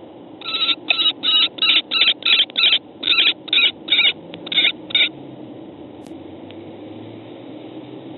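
Common kestrel giving a rapid series of about a dozen high calls, about three a second with a short break in the middle, stopping about five seconds in: part of a vocal confrontation between two female kestrels at the nest box.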